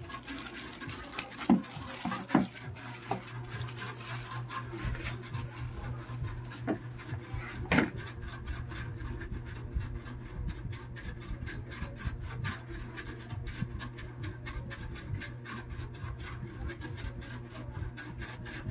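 Clear plastic packaging crinkling and rustling as it is handled, with a few sharper clicks, the loudest near eight seconds in. A steady low hum runs underneath.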